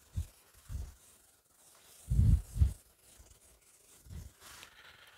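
A whiteboard being wiped with a cloth duster: several dull low thumps as the strokes hit the board, then a soft rubbing near the end.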